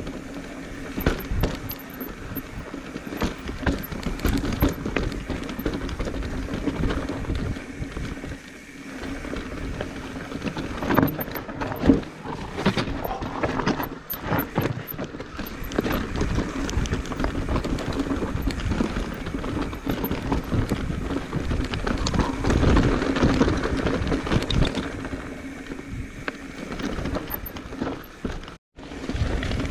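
Commencal Meta Trail 29 mountain bike descending a very rocky trail: tyres crunching over rocks and loose stones, with a constant rattle and frequent sharp knocks from the bike as it hits rocks and drops.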